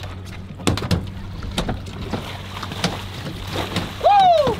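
Boat engine idling in neutral with a steady low hum, under irregular splashes and knocks of water as a king salmon is scooped into a landing net. Near the end a short whooping shout rises and falls in pitch.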